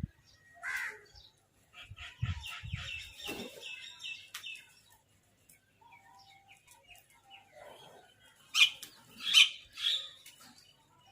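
Crows calling. A single call comes about a second in, then a quick run of high chirping notes over a few low thuds, and near the end a loud burst of three harsh caws.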